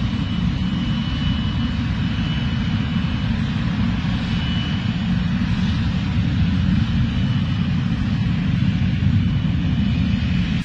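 Aircraft engine noise: a steady, loud rumble with a lighter hiss above it and a faint high whine that comes and goes.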